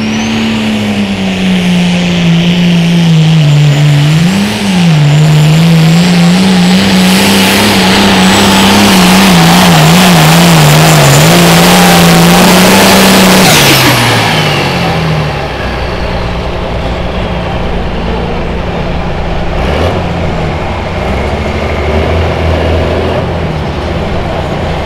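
Turbocharged diesel engine of a Case IH limited pro stock pulling tractor running flat out under load through a pull, its pitch dipping and wavering as the sled bogs it, with a high turbo whine above. About 14 seconds in it throttles back with a falling whine and settles to a steady idle.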